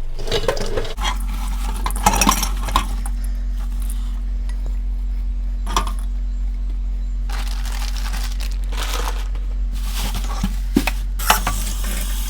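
Clinks and clatters of dishes and kitchen utensils, with a few sharp knocks, over a steady low hum that comes on about a second in and cuts off near the end.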